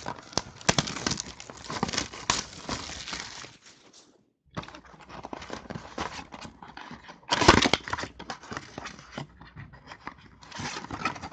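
Card boxes and their plastic wrappers being handled: irregular crinkling, rustling and small clicks and knocks, with a louder crinkle at about seven and a half seconds. The sound drops out completely for about half a second about four seconds in.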